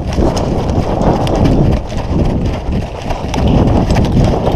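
Running footsteps in a steady, thudding stride.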